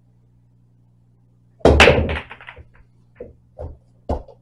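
Break shot on an MDF-bed pool table: about a second and a half in, the cue ball smashes into the racked balls with a loud crack and a rapid burst of ball clacks. Three more separate ball knocks follow as the spread balls hit.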